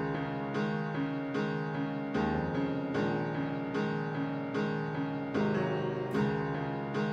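Background music: a piano-like keyboard playing a steady pattern of notes, a fresh attack about every three-quarters of a second.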